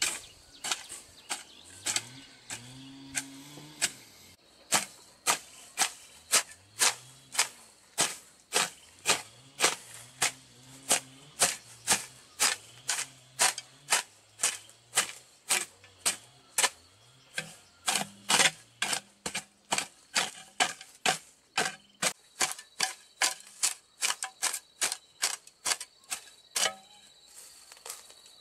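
A run of sharp knocks or strikes, about two a second and evenly paced, sparser at first.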